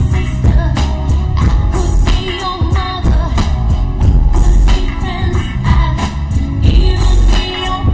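A song plays: a sung vocal over a beat with a heavily boosted bass.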